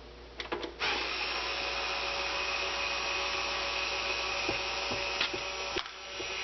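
Electric drill screwdriver running steadily for about five seconds, backing out a console case screw. A few light clicks come just before it starts, and it cuts off abruptly near the end.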